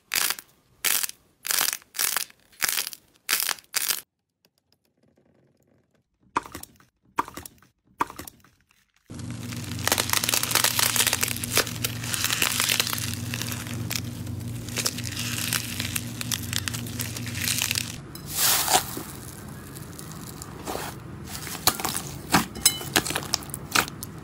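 Hands squeezing and kneading slime and clay. First comes a run of sharp crackles about twice a second, then a short near-quiet gap. After that there is continuous crunching and crackling over a steady low hum, with scattered clicks and pops near the end as glossy slime is pressed.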